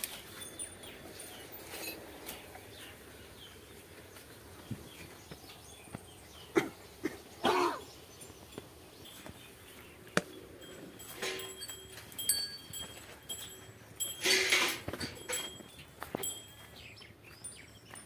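Quiet cattle-shed ambience: birds chirping in the background, with scattered rustles and knocks from handling and movement near the cows, and a louder rustle about fourteen seconds in.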